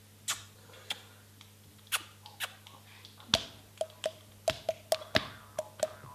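Mouth clicks and pops made with the lips and hands at the cheeks: scattered sharp clicks, then from about four and a half seconds a quicker run of pitched, hollow pops, about three to four a second.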